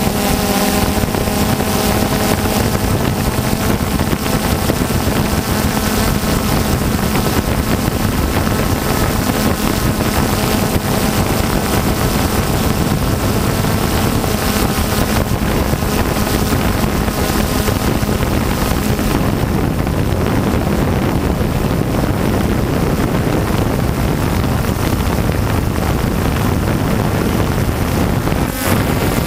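DJI Phantom 2 quadcopter's electric motors and propellers humming steadily in flight, heard from the GoPro on board, with wind rushing over the microphone.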